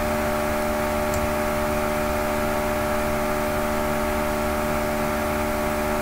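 Steady background hum made of several fixed tones over an even hiss, unchanging throughout: the noisy sound of the recording, which the uploader apologises for.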